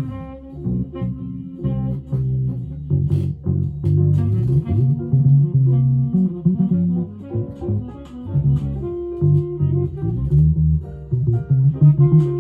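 Headless Cort guitar strung with La Bella flatwound strings, played solo: a plucked, moving line of low single notes.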